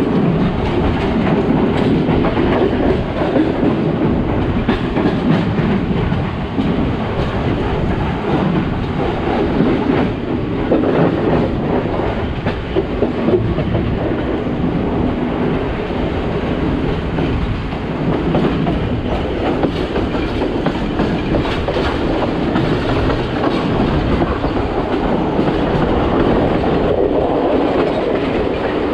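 Passenger train carriage running along the track, a steady rumble with the wheels clattering over the rails, heard through an open door or window.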